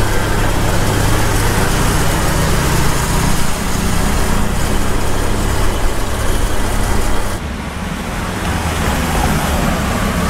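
Motorcycle running while being ridden along a road, with a steady rush of road and wind noise over the microphone. The sound dips briefly about seven and a half seconds in.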